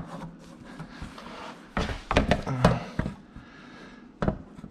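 Irregular knocks and clunks of a brace part being handled and pushed into position against the side-by-side's rear frame: a knock at the start, a cluster in the middle, and one more near the end.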